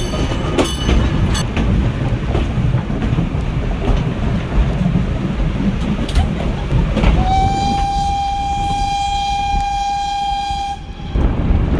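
A 116-year-old steam locomotive's whistle blows one long, steady note: it starts about seven seconds in with a slight rise in pitch and cuts off about four seconds later. Throughout, the vintage carriage rumbles and clatters along the rails.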